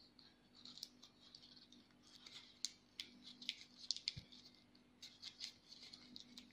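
Faint crinkling and rustling of a square of origami paper being folded and creased by hand, with scattered small sharp crackles as the folds are pressed flat, over a faint steady hum.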